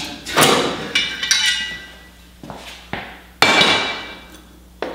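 Steel suspension bracket clanking against metal as it is pulled off the car's chassis and handled. There are about six sharp clanks with short metallic ringing, the loudest about three and a half seconds in.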